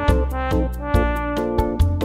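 Background music: an upbeat synthesizer and keyboard track with held chords over a steady beat.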